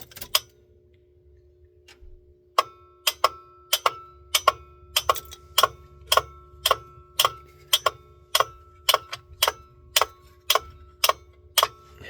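Steady electronic tone from the ambulance's electrical system with the key on, with sharp clicks about twice a second in a regular rhythm starting a little over two seconds in, like a relay or flasher.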